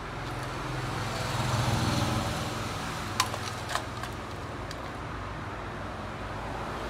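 A low engine rumble, like a motor vehicle passing, swells about a second in and then eases off. Two short sharp clicks come about three seconds in as hair clips are picked out of a small plastic box.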